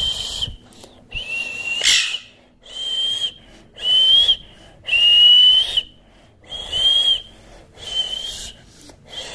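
Parrot calling over and over, short whistle-like calls about once a second, each a steady high note.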